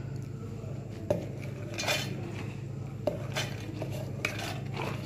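Soaked green gram being tipped from a steel bowl into a stainless steel mixer-grinder jar: wet beans sliding in, with about six light clinks and taps of steel against steel scattered through the pour.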